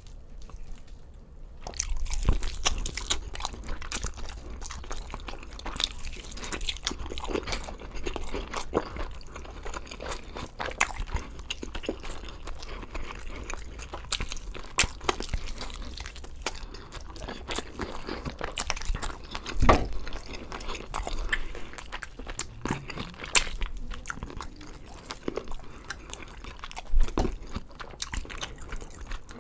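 Close-miked eating of a whole rotisserie chicken: biting and chewing with irregular crunches and crackles of the skin and meat, starting about two seconds in.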